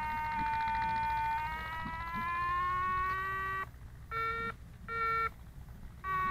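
Electronic variometer tone from the glider's telemetry, a steady tone sliding slowly in pitch. About two-thirds of the way through it breaks into two short, lower beeps, then comes back higher and falling near the end; the changes in pitch signal the glider climbing or sinking in the air.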